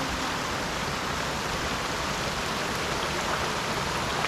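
Steady rain falling, mixed with the rush of flowing river water, as an even hiss.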